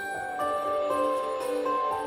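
Christmas background music with jingle bells over a melody of held, bell-like notes.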